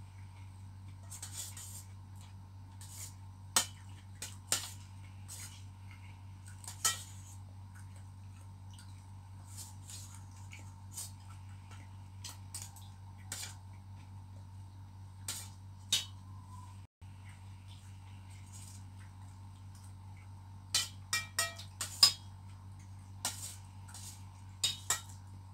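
A metal spoon clinking and scraping against a stainless steel bowl during a meal, in scattered taps with a quick run of ringing clinks about three-quarters of the way through, over a steady low hum.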